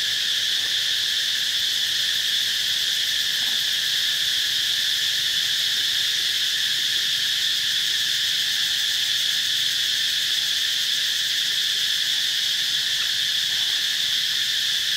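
Steady insect chorus: a continuous high-pitched drone that holds the same level throughout, without a break.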